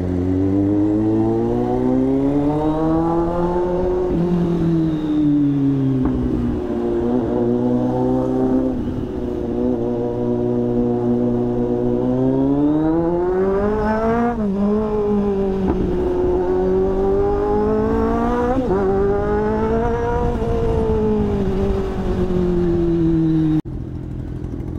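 Kawasaki superbike's inline-four engine pulling through traffic, the revs climbing and falling again and again as the rider works through the gears, with two quick dips in the second half. The engine sound falls away sharply near the end.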